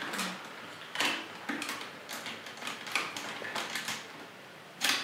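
Plastic toy parts clicking and knocking as the Shark Zord's tail-half arm swords are fitted onto the Jungle Pride Megazord figure's arms: a handful of irregular clicks and rattles.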